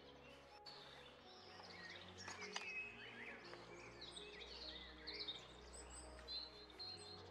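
Birds chirping and calling, many short rising and falling chirps starting about two seconds in, over soft background music with low held notes.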